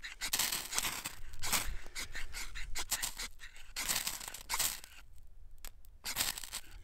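Ferro rod struck against its striker over a birch-bark tinder bundle, about five long scraping strokes, throwing sparks until the damp bark catches.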